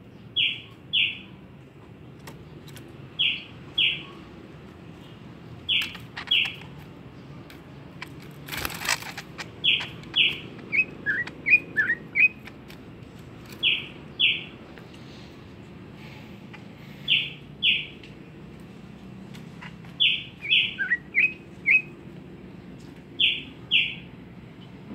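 A pet songbird calling in pairs of short, sharp chirps, a pair about every three seconds. Twice it adds a quick run of lower notes. A brief rustle comes about nine seconds in.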